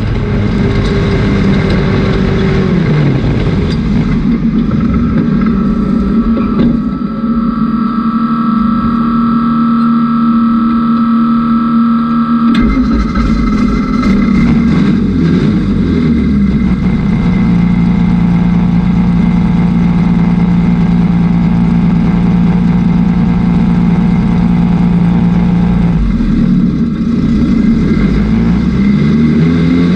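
Pro 4 dirt-track race car's engine heard from inside the cockpit, rising and falling in pitch as the throttle is lifted into the turns and opened again down the straights, with long steady stretches between.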